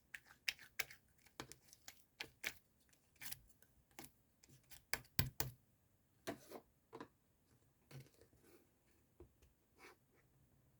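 A run of irregular, sharp clicks and taps, some in quick pairs, loudest in a cluster about five seconds in.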